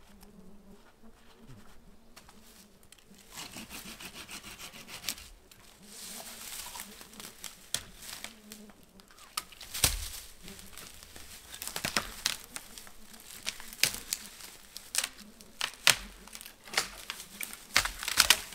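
Dry sticks being handled and snapped on a dry forest floor: crinkling rustle of twigs and needle litter in the first half, then a run of sharp cracks from about halfway, the loudest near the end.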